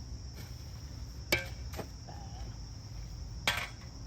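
Steady high chirring of crickets, with a few sharp knocks cutting through it, the loudest about a second in and another near the end.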